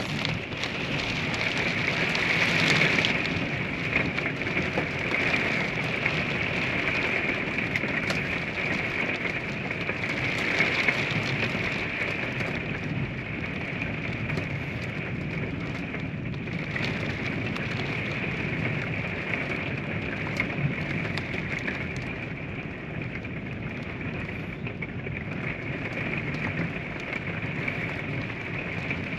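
Steady heavy rain falling in a thunderstorm, heard from inside a small camper as an even hiss with scattered drop clicks, swelling slightly a couple of times.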